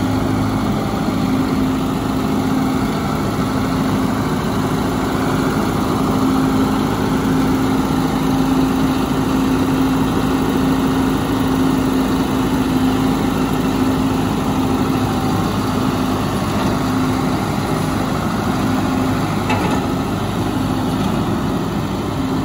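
John Deere 5100M tractor's four-cylinder diesel engine running at a steady low speed, a constant-pitched hum, as the tractor is driven slowly about.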